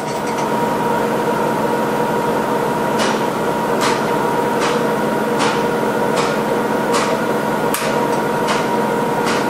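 ATI CW3 torque converter welding machine humming steadily with a steady tone during the end-play check. From about three seconds in, a short click repeats a bit more than once a second.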